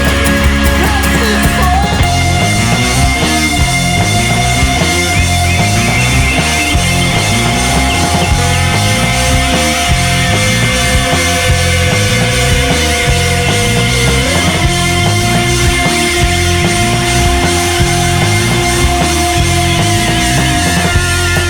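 Loud instrumental rock music, with long held notes over a repeating bass line; one held note drops in pitch about two-thirds of the way through.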